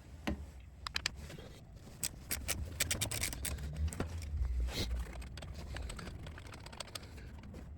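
A hand wrench or socket working a 14 mm nut loose on a motorcycle through bolt: irregular metallic clicks and clinks, thickest in the middle, then tapering off. A steady low hum from a garage heater runs underneath.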